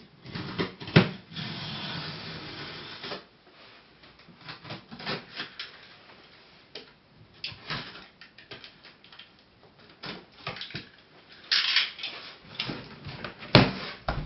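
Cardboard box being opened and handled: rustling and scraping with scattered clicks and knocks, a longer rustle in the first three seconds and a sharp knock near the end.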